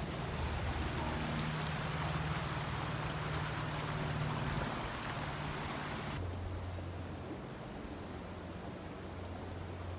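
Shallow stream running over rocks and small rapids: a steady rush of water with a low rumble underneath. About six seconds in it drops to a quieter, duller rush.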